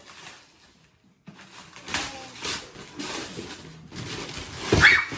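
Wrapping paper being torn and crumpled as gifts are unwrapped: a string of uneven ripping and rustling noises that starts about a second in, with a louder rip near the end.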